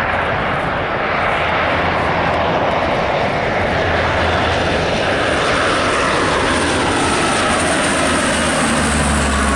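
Lockheed P-3 Orion's four Allison T56 turboprop engines and propellers, loud and steady, as the aircraft flies low overhead on approach with its landing gear down. A low propeller hum runs under the engine noise, and a whine slowly drops in pitch in the second half as the aircraft passes.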